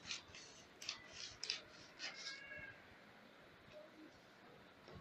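Scissors snipping through a paper pattern, cutting out the bust dart, in a quick run of short crisp cuts over the first two and a half seconds. A brief high-pitched squeal comes about two seconds in, then it goes quiet.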